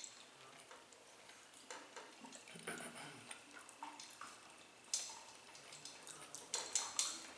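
Eating sounds while chewing chicken: scattered wet mouth clicks and smacks with a few sharper clicks, bunched about five seconds in and again near the end.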